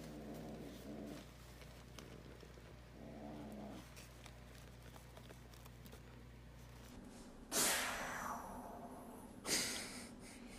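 A cat growling low in two short spells. Then come two loud, sudden cries about two seconds apart, each falling in pitch.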